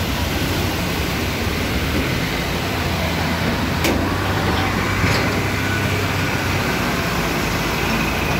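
A heavy truck's engine running close by in slow traffic, over a steady rush of noise from floodwater churning around the wheels. Two sharp clicks a little over a second apart, near the middle.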